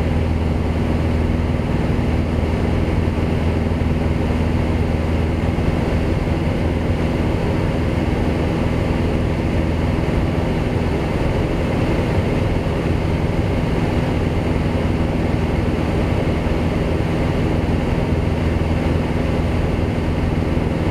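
Single-engine light aircraft's piston engine and propeller running steadily in flight, heard from inside the cockpit as an even drone with a low hum.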